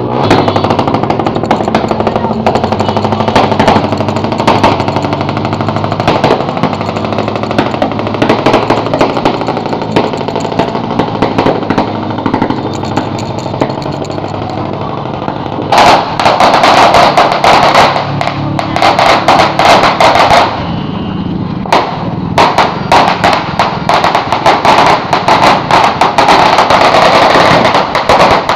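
Firecrackers going off in long strings of rapid pops. The crackling turns loudest and densest about halfway through, pauses briefly, then starts up again near the end.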